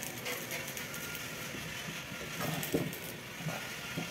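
A few light knocks and clicks of metal pump parts being handled on a workbench, over a steady background noise. The knocks come in a small cluster about two and a half seconds in and again near the end.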